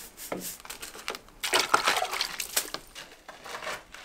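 Masonry work setting a stone door threshold: a run of irregular scrapes and knocks, busiest from about one and a half to three seconds in.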